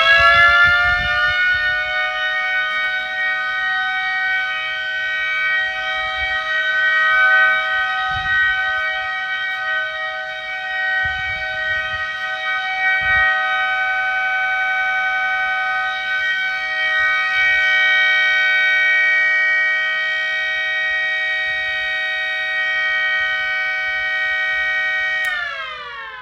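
Miniature Federal Signal 3T22 siren sounding a steady alert tone: a held chord of several pitches at full speed. About 25 seconds in it is switched off, and the pitch slides down as the rotor winds down.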